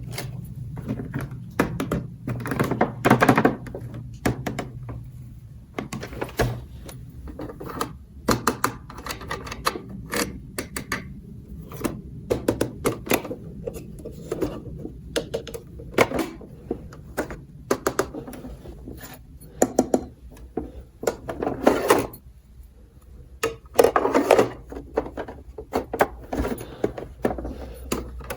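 Toy dollhouse pieces clicking, tapping and knocking against each other and a surface as they are handled and fitted together, in quick irregular clusters with short pauses between.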